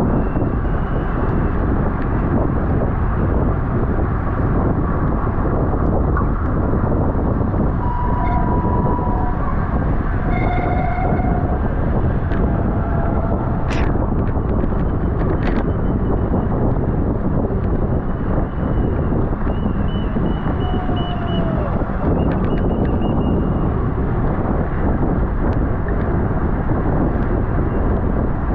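Wind rushing over the microphone of a camera on a moving bicycle, a steady loud rumble. A few faint brief tones come through, and there is a sharp click about 14 seconds in.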